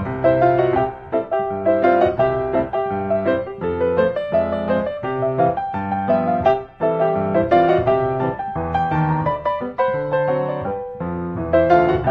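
Background piano music, a melody over chords played at a moderate pace.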